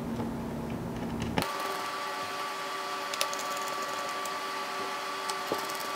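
A screwdriver driving screws back into a laptop's plastic bottom cover: a few light clicks over a steady faint hum that starts about a second and a half in.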